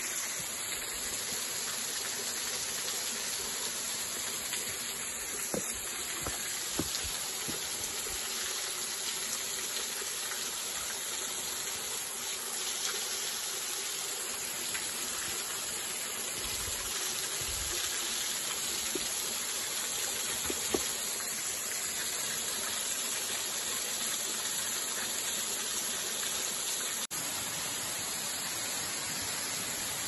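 Small waterfalls spilling over rock ledges and splashing onto boulders: a steady rush of falling water, with a momentary break about three seconds before the end.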